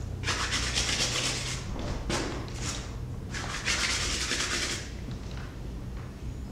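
A bristle brush scrubbing oil paint onto canvas in rapid strokes: a long scratchy burst, a few short strokes, then another long burst that stops about a second and a half before the end.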